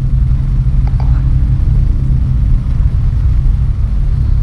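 Experimental sound-design drone: a loud, steady low rumble with faint higher tones above it and a couple of soft clicks about a second in.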